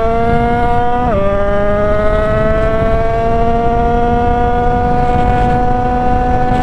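Yamaha DT two-stroke motorcycle engine under acceleration: it shifts up a gear about a second in, then its pitch climbs steadily as the bike pulls through the gear, over a rush of wind.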